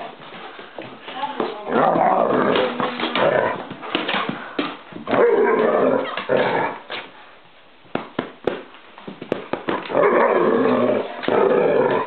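A German shepherd and a small dog play-fighting: growling in three bursts of a second or two each, with short scuffling knocks in between.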